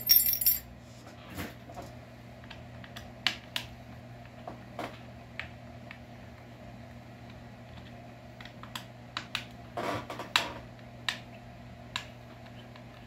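Metal hand tools clicking and tapping on a chainsaw being taken apart: a hex key working screws, with a brief metallic clatter at the start and a quick run of clicks about ten seconds in. A steady low hum in the background.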